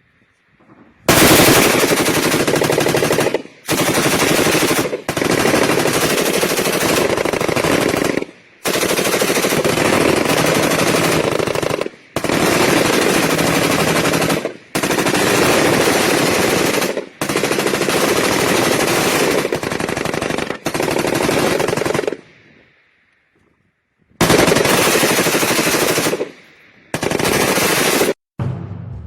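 Light machine gun firing long sustained bursts of automatic fire, about ten bursts separated by brief pauses, with a longer pause about three-quarters of the way through.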